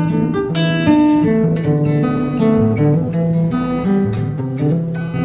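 Background music: an acoustic guitar playing picked notes and chords.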